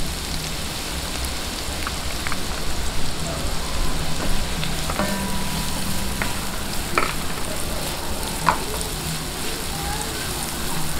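Chopped onion and minced garlic sizzling in hot oil in a nonstick wok as they are sautéed, stirred with a spatula that gives a few light clicks against the pan.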